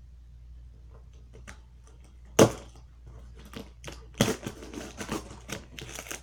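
A cardboard package being handled: scattered clicks and taps, with two sharp thumps about two and a half and four seconds in, then a quick run of clicks and rustles.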